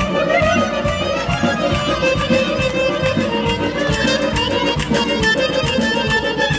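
Traditional music with a fiddle-like melody over a steady beat.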